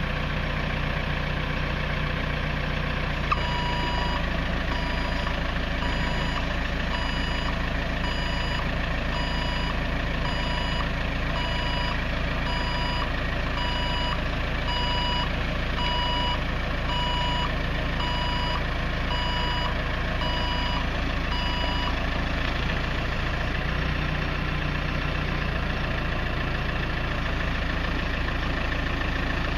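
A telehandler's diesel engine runs steadily while its reversing alarm beeps about once a second, starting a few seconds in with a sharp click and stopping about three-quarters of the way through.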